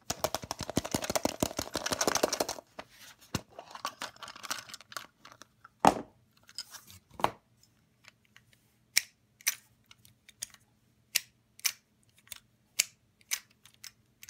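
Hard plastic surprise egg handled and opened, a dense crackling and rattling for about two and a half seconds. Then single sharp clicks, coming about every half second near the end, as the plastic arm and bucket of a small toy front loader are worked by hand.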